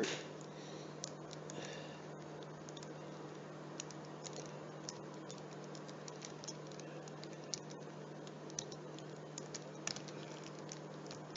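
Faint, scattered small clicks from a small screwdriver and hands working the tiny keyboard screws on a Dell Latitude laptop, over a steady low hum.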